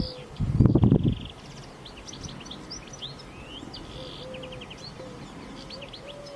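Small birds chirping with quick trills, over low drawn-out calls repeated several times. A loud low rumble, under a second long, comes about half a second in.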